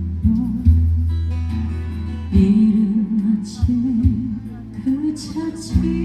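A live singer singing a Korean song over guitar accompaniment, the melody rising and falling over steady bass notes.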